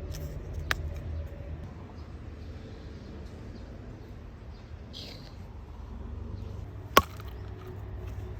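A single sharp knock of an axe striking a log about seven seconds in, with a fainter knock near the start, over a low steady rumble.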